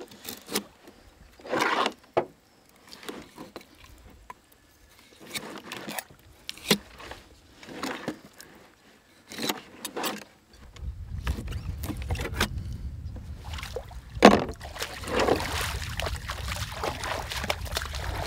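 Fillet knife cutting and scraping through a large black piranha on a plastic cooler lid, in short, irregular strokes. About ten seconds in, a steady low rumble sets in beneath further knocks and scrapes, with one sharp knock near the middle.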